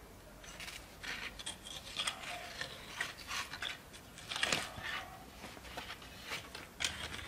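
Fresh herb stems snapped and leaves rustled by hand as a bunch of greens is picked over, in an irregular run of small crisp crackles and snaps, busiest around the middle.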